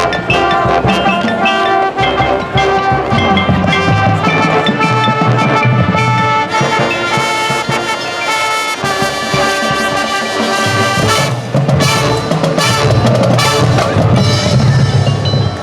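A high school marching band playing its field show: brass sections sounding held chords over drums and percussion, with a busier run of percussion strikes about three quarters of the way through.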